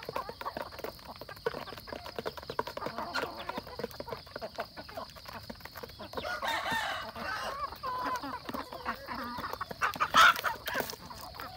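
A flock of chickens and roosters feeding from trays: quick clicking pecks and clucking throughout, a busier spell of calling about six seconds in, and a sudden loud flurry of wing-flapping about ten seconds in.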